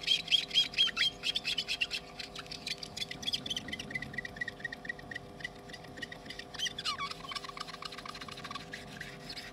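Acetone-wet melamine (magic) sponge pushed hard back and forth over an iPhone LCD's polariser, squeaking in rapid runs of short, high chirps as it scrubs off thick OCA glue residue. The squeaks drop lower in pitch about two-thirds of the way through. A steady hum runs underneath.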